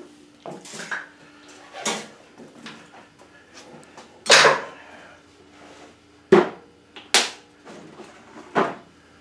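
A series of sharp clunks and knocks, about six in all, the loudest about four seconds in, as a detachable sissy bar is worked onto its docking points on the motorcycle. A faint steady hum sits underneath.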